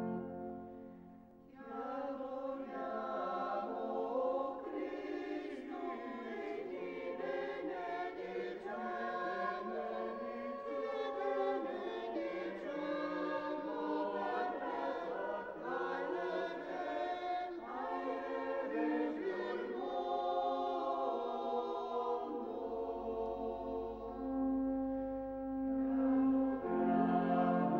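Small church choir singing a hymn, accompanied by pipe organ. The singing comes in about a second and a half in, after a short lull.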